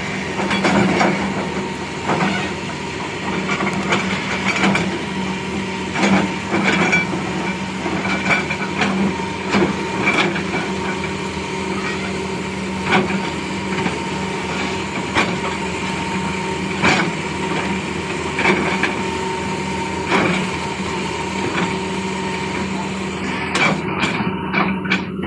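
Excavator engine running steadily, with irregular sharp knocks and cracks every second or so as it clears material.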